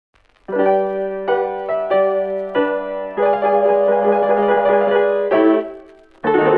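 Piano music: a series of held chords that change every half second to a second or so, dying away near the end before a louder new passage starts.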